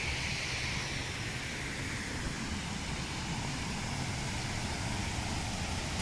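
Steady rushing noise of a waterfall heard from a distance, with a low rumble under it.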